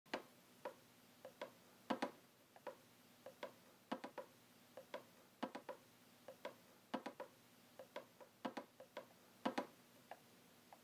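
A series of sharp, light clicks and taps at irregular intervals, some in quick pairs or clusters, over a faint steady hum.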